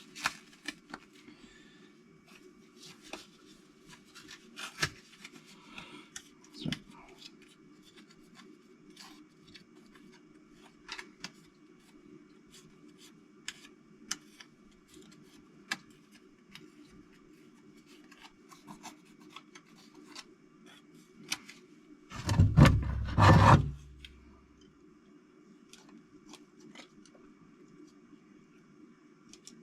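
Small handling noises, light clicks and rubbing, as engine parts are oiled and handled by hand, over a steady low hum. A loud rumbling thump lasting about two seconds comes near the end.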